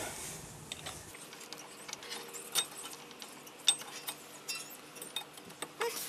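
Scattered metallic clicks and clinks of a new brake pad being seated into the front caliper bracket of a Toyota Corolla, the pad's steel backing plate and clips knocking against the bracket. The sharpest click comes a little past halfway.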